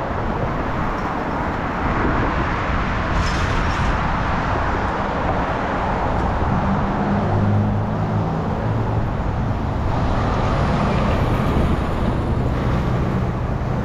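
Road traffic passing on a busy multi-lane street, a steady rush of tyres and engines. In the second half a heavier vehicle's low engine hum comes in, a box truck passing close by near the end.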